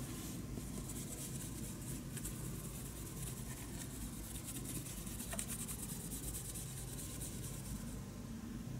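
A cloth rubbing over a plastic model car body in quick repeated wiping strokes, stopping near the end.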